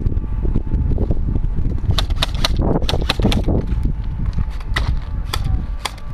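Airsoft guns firing: a quick run of sharp cracks about two seconds in, then a few single shots near the end. Underneath is a heavy rumble of footsteps and wind on the microphone of a player on the move.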